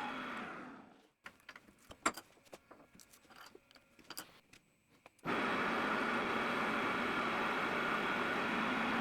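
Lathe running steadily, winding down about a second in; then a few seconds of small metallic clicks and taps; then the lathe running steadily again, starting abruptly at about five seconds.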